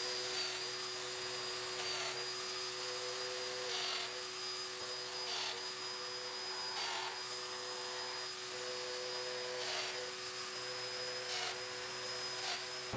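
Festool Domino joiner running with a steady high whine, plunged into a panel edge about seven times; each plunge briefly drags the motor's pitch down and adds a short burst of cutting noise. Underneath is the steady drone of the shop vacuum on its dust hose.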